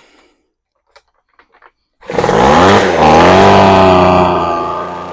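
Poulan Pro leaf blower's two-stroke engine starts about two seconds in after a few small clicks. It revs up loudly with a wavering pitch, then eases down to a steadier, lower run, still running a little rich.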